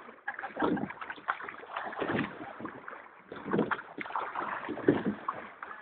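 Crew rowing a multi-oared rowing boat: the oars working through the water in a steady stroke, a surge of splashing and rowing noise about every second and a half.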